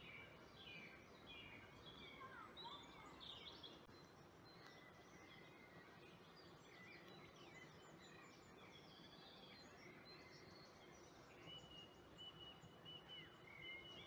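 Faint birdsong: several birds chirping and whistling over a low, even hiss, with one high note held for a couple of seconds near the end.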